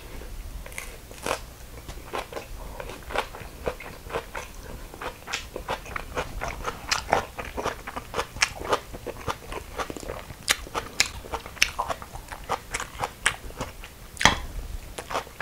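Chewing of raw young radish greens (yeolmu) bibimbap: many irregular, crisp crunches, several a second, as the raw stems are bitten through. The greens are hard to eat.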